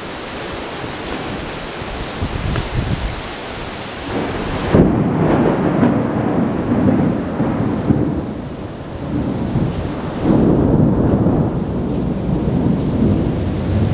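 Heavy rain hissing steadily. About five seconds in, thunder breaks into a long, loud, rolling rumble that swells again a few seconds later.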